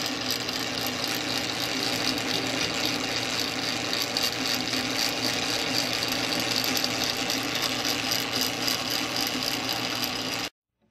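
Change-gear train of an early-1950s Sheldon lathe running, the spur gears meshing with a steady rapid clatter over a low hum; it cuts off suddenly near the end.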